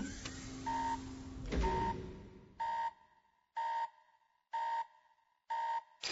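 An electronic beep, one short steady tone, repeating about once a second, fainter after the first seconds. In the first two seconds it sounds over a fading noisy rush with a low hum.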